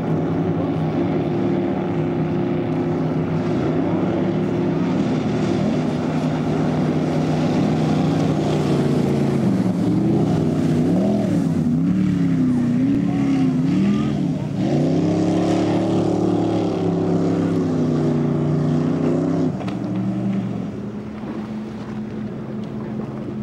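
Q Boat speedboat's engine running at speed, a steady note that wavers up and down in pitch for several seconds in the middle, then holds. About three quarters of the way in it drops to a lower, quieter note.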